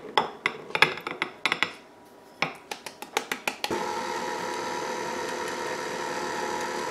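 Glass bowl clinking and tapping against the rim of a glass mixing bowl as flour is tipped in. About three and a half seconds in, a KitchenAid tilt-head stand mixer starts and runs with a steady motor whine.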